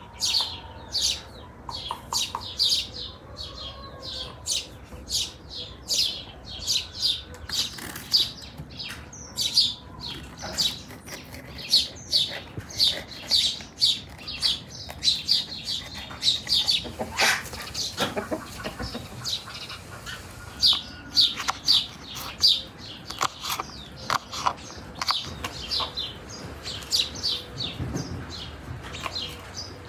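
Small birds chirping busily, many short high chirps a second without a break, with a couple of brief knocks about midway.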